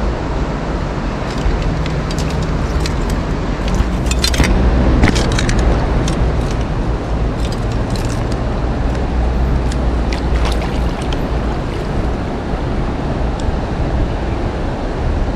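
Steady low rushing of stream water close to the microphone, with scattered sharp clicks and ticks, busiest about four to five seconds in and again around eight to ten seconds, while a hooked chub is played in on a fly rod.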